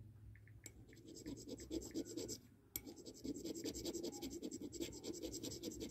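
A hematite stone scraped hard and fast back and forth against the rim of white ceramic, a streak test, in quick gritty strokes of about ten a second, with a short break about two and a half seconds in.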